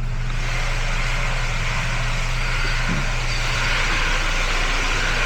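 Compressed air hissing steadily from a blow gun, starting abruptly, used to clear dirt and moisture out of a spark plug well.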